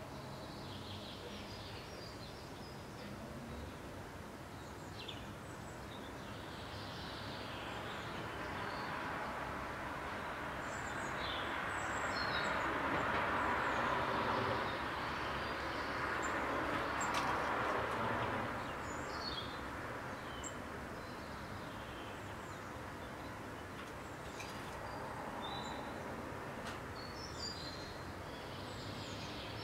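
Steady outdoor city background noise that swells for about ten seconds in the middle as a distant vehicle passes, then fades back. Small songbirds chirp briefly at intervals throughout.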